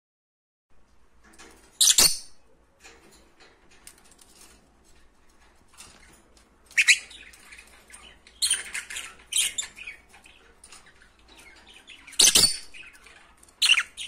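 Lovebirds giving short, shrill chirps, a handful of separate calls, the loudest about two seconds in and again near the end.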